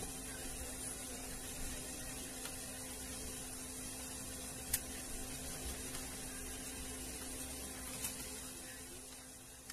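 Steady electrical mains hum with an even hiss, broken by a few soft clicks, fading out near the end.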